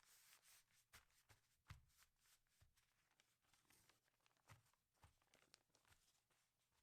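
Near silence, with faint scattered ticks and short soft rustles; the clearest tick is about a second and a half in.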